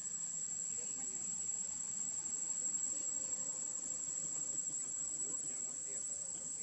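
Steady high-pitched drone of insects, unbroken throughout.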